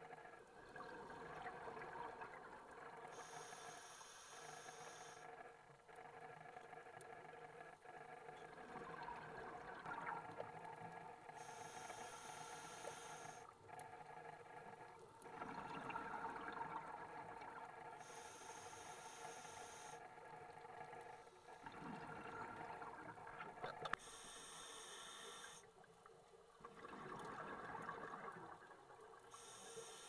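Faint scuba regulator breathing heard underwater: a hiss on each inhalation, about every six to seven seconds, with bubbling exhalations between, over a faint steady hum.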